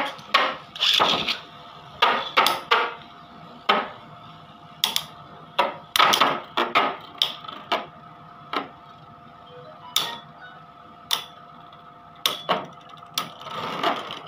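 Two Beyblade spinning tops battling in a plastic tub: repeated sharp clacks as they strike each other and the plastic wall. The clacks come fast at first, then thin out, with a quick flurry near the end.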